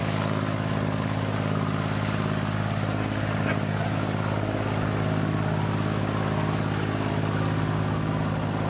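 A small ferry boat's engine running steadily under way, heard from on board as an even hum of several low tones over a steady hiss.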